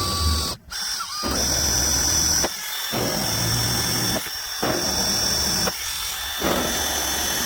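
Electric drill running in about five bursts with short pauses, a 9/16-inch bit opening up a mounting hole in the sheet-metal hood.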